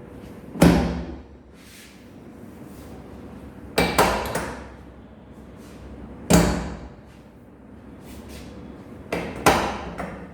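Heavy thuds from a chiropractic adjustment on a treatment table: four impacts about two and a half seconds apart, the second and fourth doubled, each dying away within about half a second.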